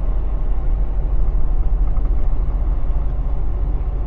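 Semi-truck's diesel engine and drivetrain running steadily under way, heard from inside the cab as a continuous low drone.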